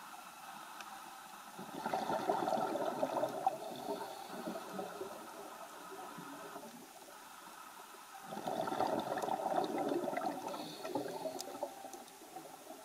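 Scuba diver's exhaled bubbles gurgling out of the regulator underwater in two long bursts, one about two seconds in and one about eight seconds in, over a faint steady hiss.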